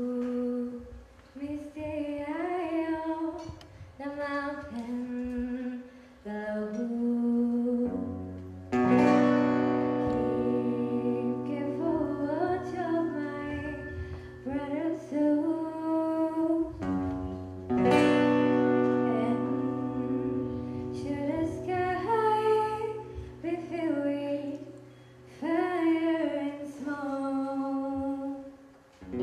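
A woman singing a slow song into a microphone with acoustic guitar accompaniment. About nine seconds in, fuller sustained low accompaniment joins and the music gets louder.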